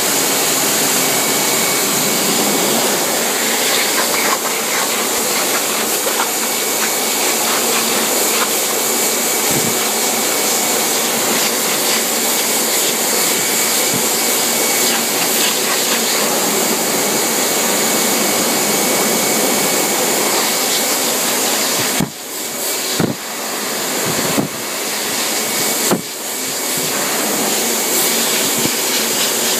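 High-pressure dog blower dryer running, a loud steady rush of air driven through a husky's thick coat to force the undercoat out. About three quarters of the way through, the rush dips briefly several times.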